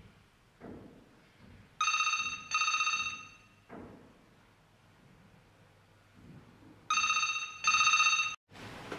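White corded desk telephone ringing in a double-ring pattern: two quick rings, a pause of about three seconds, then two more rings that cut off suddenly.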